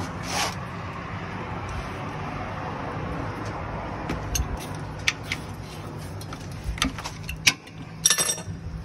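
Scattered sharp metallic clinks and taps, with a quick cluster of them near the end, over a steady low hum.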